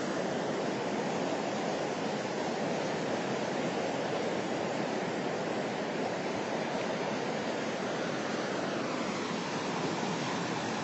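Ocean surf: a steady wash of breaking waves, with no single crash standing out.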